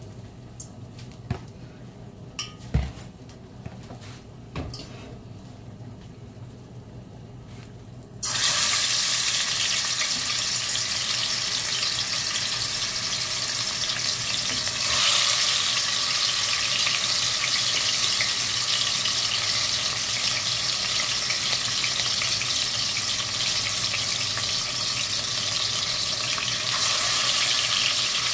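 Seasoned chicken pieces sizzling in hot cooking oil in a large aluminium pot as they begin to brown. The first seconds hold only a few light knocks. The steady sizzle starts suddenly about eight seconds in and gets louder about halfway through as more pieces go in.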